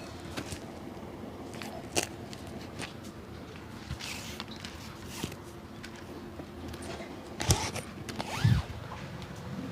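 Scattered scraping and clicking of a cobbler working an old shoe by hand, with a few sharper knocks, the loudest a dull thump near the end.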